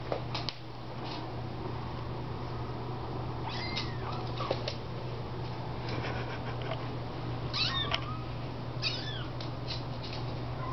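Young kittens mewing in a few short, high-pitched calls that bend in pitch, with scattered light clicks over a steady low hum.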